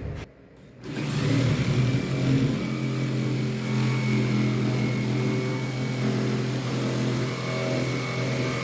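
A machine's motor starts about a second in and runs steadily at a constant pitch.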